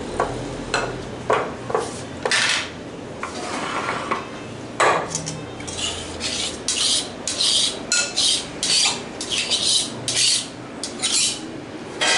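A spatula scraping and knocking against a glass mixing bowl of whipped cream, with utensils clinking. It starts as irregular scrapes and knocks, then turns into a run of short scraping strokes, about two a second, in the second half.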